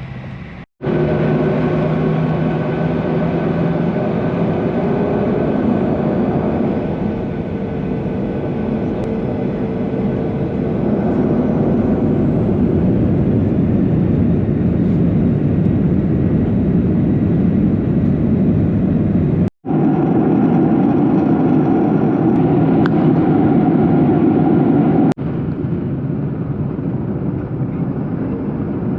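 Jet airliner noise heard from inside the passenger cabin: a loud, steady rush of engines and airflow with a few held engine tones, cut off abruptly twice.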